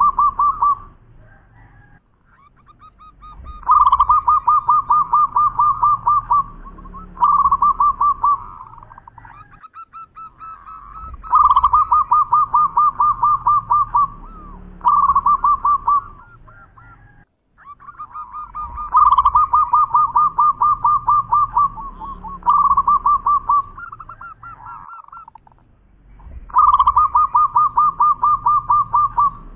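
Zebra dove singing its rolling coo song four times. Each song is a long run of rapid coo notes followed by a short run, and the songs come about every seven to eight seconds.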